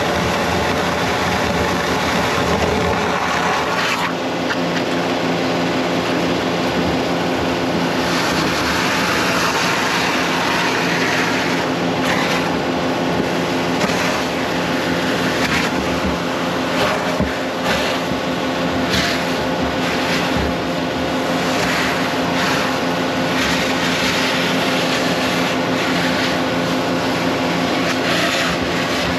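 Vacuum tanker's suction hose sucking out a grease trap, with the steady drone and hiss of the tanker's pump and intermittent gurgling slurps as water and grease are drawn up, while a high-pressure jetting hose sprays into the chamber.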